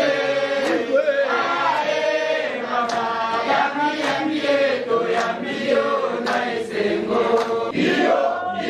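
A group of people chanting a song together in unison, with occasional sharp claps.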